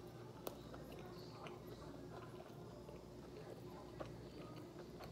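Quiet chewing of a mouthful of fried chicken sandwich, with two soft mouth clicks, one about half a second in and one near the end, over a faint steady hum.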